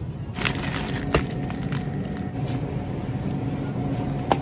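Steady hum of a supermarket's frozen-food aisle, with a few sharp clicks and knocks from grocery items being handled. The loudest knock comes near the end.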